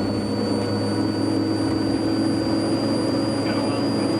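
Chase van's engine and road noise while driving, a steady drone, with a thin high-pitched whine that slowly rises in pitch.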